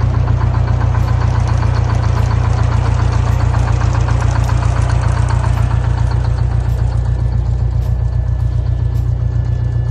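Diesel engine of a 1956 Greyhound Scenicruiser bus idling steadily, with a rapid, even low pulsing.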